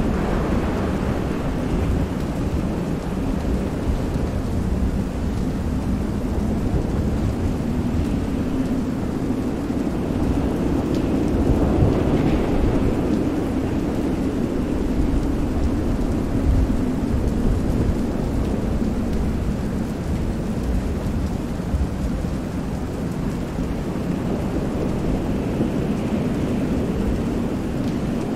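Stormy soundscape of steady heavy rain over a continuous low rumble of thunder, swelling briefly about twelve seconds in.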